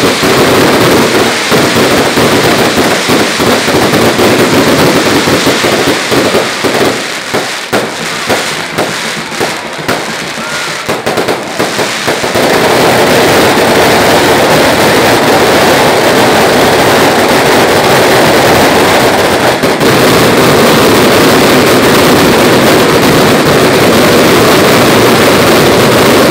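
Fireworks barrage: rapid bangs in quick succession that thin out to separate bangs about seven seconds in. About twelve seconds in it swells into a continuous dense barrage, the bangs too close together to tell apart.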